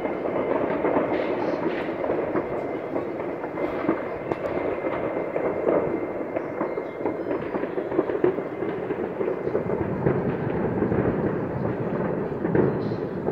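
Many fireworks and firecrackers going off at once across the city, their distant bangs and crackles overlapping into a steady, dense din.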